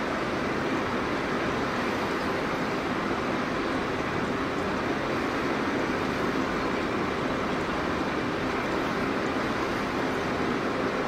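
Steady rushing ambient noise of an exhibition hall, even and unbroken, with no distinct events.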